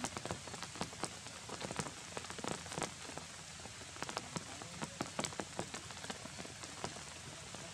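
Rain falling steadily, with irregular sharp ticks of drops striking close by.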